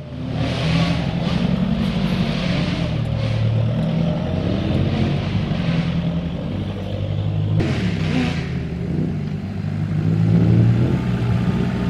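Toyota Hilux N70 pickup's engine working under load at low speed, its revs rising and falling as the truck crawls through deep dirt ruts.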